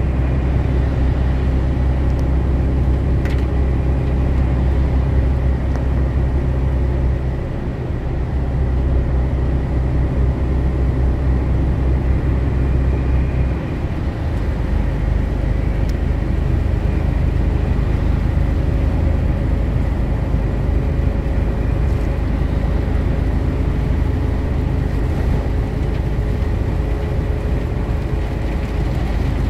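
Steady engine drone and road noise heard inside a truck's cab while driving on a motorway. The low engine tone shifts about halfway through.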